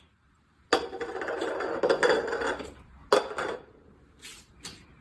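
Clattering and knocking of hard objects: a sharp knock with about two seconds of rattling after it, a second sharp knock, then a couple of faint clicks near the end.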